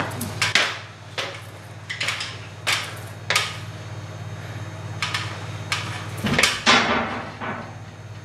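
Nail gun driving nails into 2x4 loft joists: a series of sharp knocks at uneven intervals, over a steady low hum.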